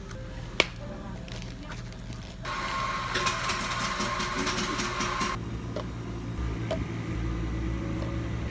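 A plastic dome lid clicks sharply onto a cup, then a steady hiss with a faint whistle runs for about three seconds, over a constant low hum.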